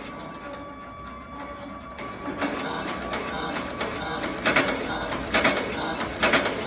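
Glove-knitting machine running with a fast, even mechanical clatter, which gets louder about two seconds in.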